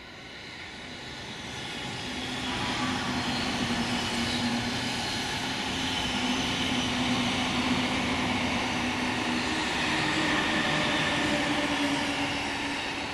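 Tokaido Line electric train running past: the rush of wheels on rail and a steady hum build up over the first few seconds, hold steady, then begin to fade near the end.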